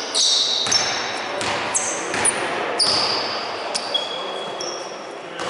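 Basketball game play on a court: many short, high shoe squeaks on the floor, about one or two a second, with a few sharp knocks of the ball bouncing.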